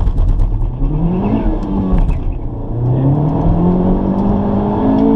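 Honda Civic Type R's turbocharged 2.0-litre four-cylinder accelerating hard from a 3500 rpm launch, heard from inside the cabin. The engine note rises quickly through first gear, dips at an upshift about two seconds in, then climbs again more slowly in the next gear.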